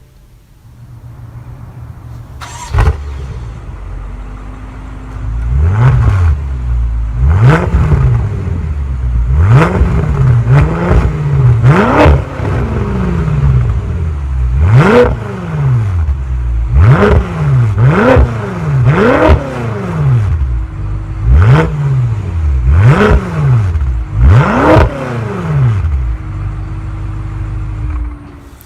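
BMW M5's 4.4-litre twin-turbo V8 starting up, settling to idle, then blipped about a dozen times in quick rev-and-drop bursts before returning to idle. The exhaust is loud.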